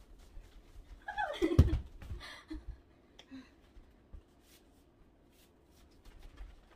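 A short vocal exclamation over a low thump about a second and a half in, a weaker one just after, then faint scattered ticks.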